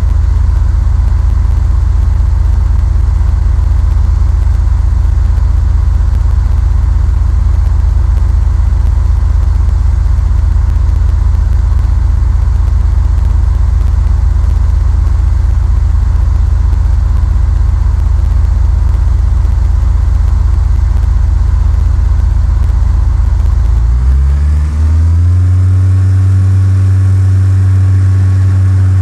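Cessna 172's piston engine and propeller running in a loud, steady drone. About 24 seconds in, the pitch climbs and holds higher as power is increased.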